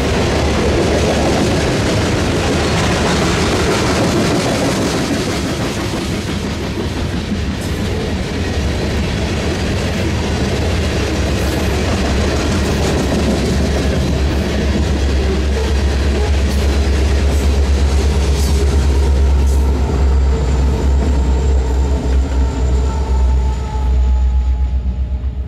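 Freight train rolling past close by: a steady low rumble with the clatter of steel wheels over the rails.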